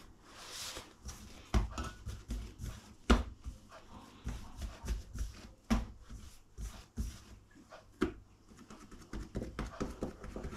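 Hands shaping bread dough on a worktop and pressing it into a metal loaf tin: irregular soft pats and handling noises with occasional light knocks, the loudest about three seconds in.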